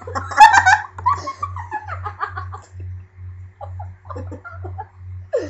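A person laughing and giggling, loudest about half a second in and dying away after about two and a half seconds.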